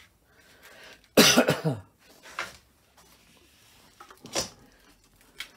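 A person coughs once, about a second in, followed by a few quieter short knocks and rustles.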